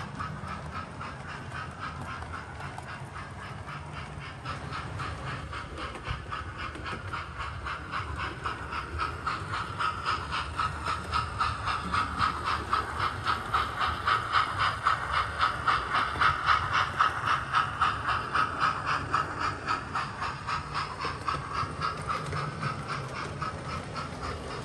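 Hornby OO gauge King class model steam locomotive running past with a fast, regular chuff and hiss, growing louder towards the middle and then fading as it moves away.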